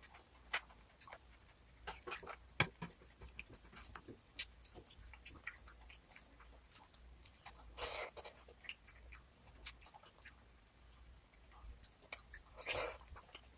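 Close-up eating sounds: food being chewed, with many small irregular clicks and crunches, and two short breathy bursts about eight and twelve and a half seconds in.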